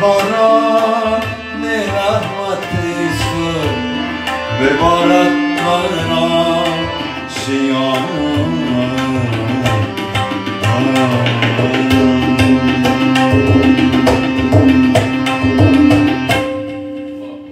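Afghan song played on harmonium and tabla, with a man singing a melodic line over the steady tabla rhythm. The music fades out near the end.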